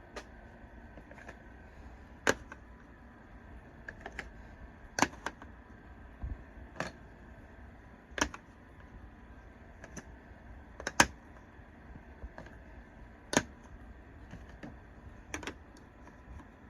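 Hard plastic toy pieces clicking and knocking as they are handled: a dozen or so sharp, separate clicks at uneven intervals, a few of them louder.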